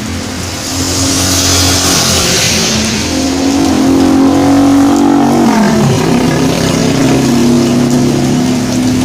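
A road vehicle driving past on a wet road in the rain, its engine getting louder as it approaches, with a high hiss from the wet road. About six seconds in its engine note drops in pitch as it passes.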